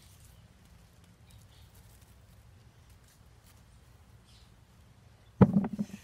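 Faint rustle and crumbling of soil as hands dig through a garden bed, then near the end a short loud burst of knocks and rustling close to the microphone as the digger shifts position beside it.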